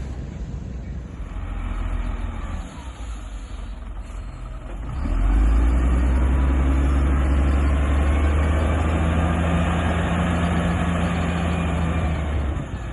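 Heavy diesel engine of a construction vehicle running, rising sharply in level about five seconds in and then running loud and steady, with a faint whine above it.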